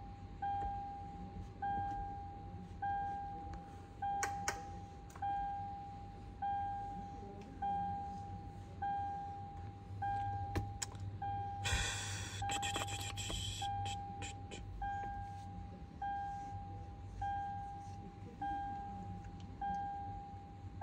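An electronic chime: a single pitched tone that sounds and fades, repeating steadily about every 1.2 seconds. A short rustle of handling comes a little past halfway, with a few light clicks.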